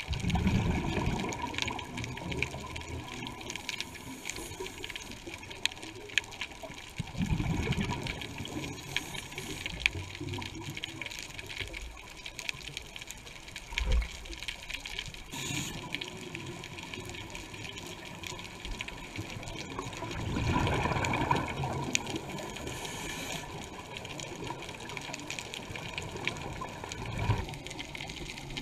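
Scuba regulator breathing heard underwater through the camera housing: bubbling exhalation bursts every several seconds over a steady hiss, with scattered small clicks.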